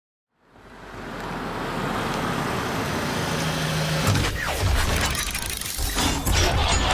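Intro soundtrack of edited music and sound effects: a noisy swell fades in and builds to a dense, loud texture with heavy bass, then several crash-like hits from about four seconds in.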